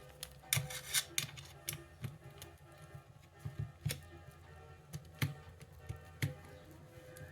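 Irregular small clicks and light knocks of hand work taking screws out of the E-mu Proteus 2000's front panel, with faint background music underneath.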